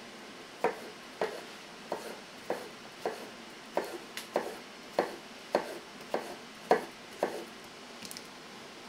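A kitchen knife chopping vegetables on a cutting board: about a dozen steady, evenly spaced knocks, a little under two a second, stopping about a second before the end.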